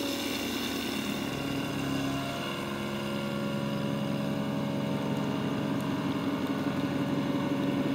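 Electric citrus juicer's motor running steadily with a constant hum while juicing oranges on its with-pulp setting.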